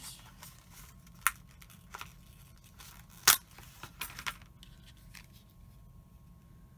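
Small metal cutting dies and watercolour paper being handled on a craft desk: several short sharp clicks, the loudest about three seconds in, with light paper rustling.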